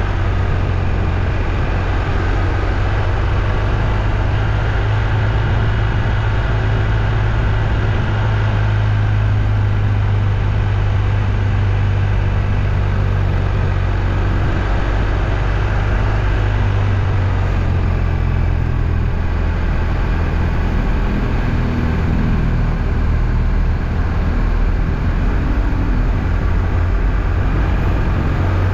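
Steady low rumble and road noise of a moving vehicle, unchanging throughout.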